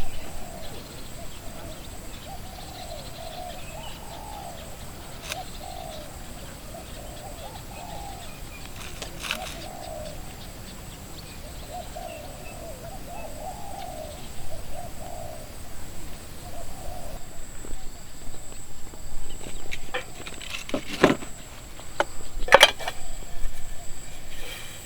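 Doves cooing in short, wavering, repeated phrases, with a few sharp knocks near the end.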